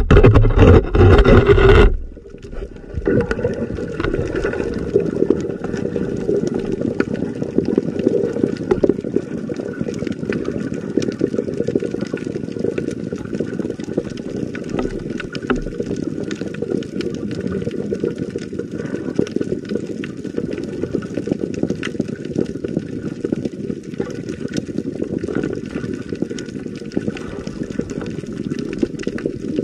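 Underwater sound picked up by a submerged camera over a coral reef: a muffled, steady water rush with many faint crackles throughout. A louder burst of noise fills the first two seconds, then cuts off sharply.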